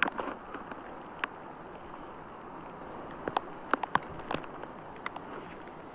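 Rain falling: a steady hiss with a few scattered sharp ticks of drops.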